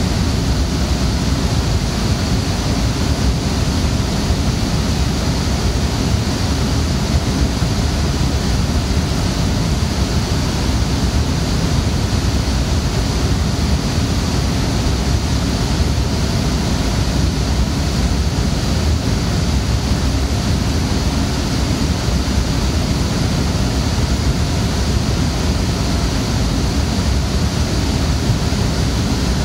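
Steady, very loud noise of a data centre: many server cooling fans and the room's air handling running constantly, an even whooshing without breaks or changes.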